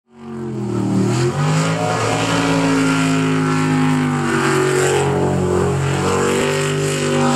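Jet sprint boat's V8 engine running hard at high revs, its pitch shifting up and down several times as the throttle changes.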